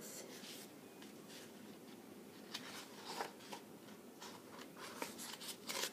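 Faint rustling and soft taps of a picture book's paper pages being handled and turned, a little louder near the end.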